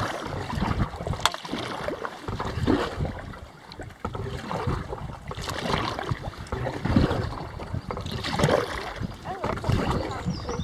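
Kayak paddle strokes: the double-bladed paddle dipping and pulling through calm water, with splashing and dripping off the blades, a stroke every second or two.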